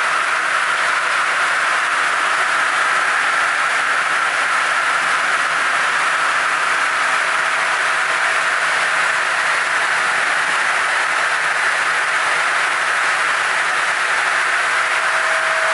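Lignuma TR 800 twin-blade circular sawmill running empty with no log in the cut, giving a steady, loud whirring hiss. A faint steady whine fades soon after the start and comes back near the end.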